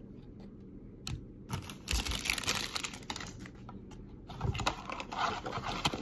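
Trading cards and a foil card-pack wrapper being handled: irregular bursts of rustling and crinkling with a few sharp clicks and taps, loudest around two seconds in and again near the end.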